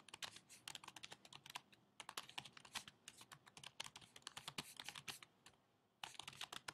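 Faint typing on a computer keyboard: quick runs of key clicks, broken by two short pauses.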